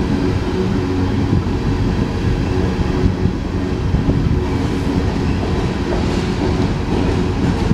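Empty coal train's open-top hopper cars rolling past directly below: a loud, steady low rumble of steel wheels on the rails that does not let up.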